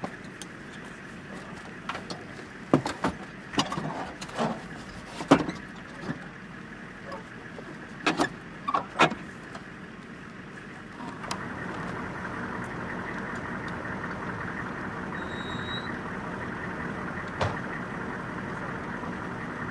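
Sharp metal clanks and knocks, about a dozen over the first nine seconds, as a TOW missile tube is handled onto a Humvee-mounted launcher. From about eleven seconds in, a Humvee's engine runs steadily underneath.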